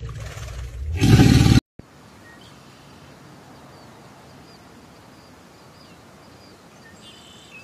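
A crocodile growls deeply for about the first second and a half, then the sound cuts off abruptly. What follows is a faint outdoor background with small, high bird chirps.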